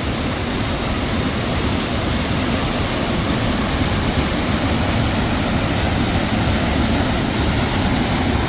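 Waterfall on a swift, runoff-swollen creek, water pouring down through rocks: a steady, loud rushing roar with no let-up.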